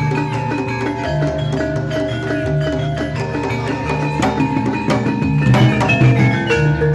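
Live Javanese jaranan gamelan music: saron and demung metallophones ring out a repeating melody over kendang drumming in a steady rhythm, with kenong and gong tones sustaining underneath.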